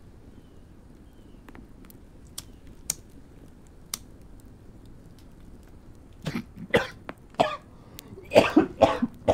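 A cigarette lighter clicks several times, about five sharp ticks over a couple of seconds. Then, about six seconds in, comes a fit of harsh coughing on the smoke from a first drag, the sign of a first-time smoker.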